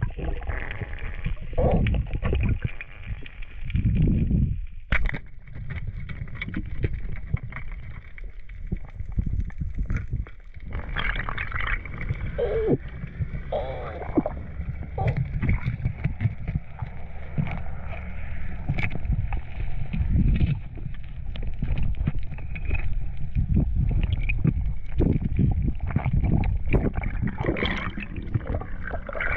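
Underwater sound picked up through an action camera's housing: a low, muffled water rumble with gurgling bubbles and a few sharp knocks.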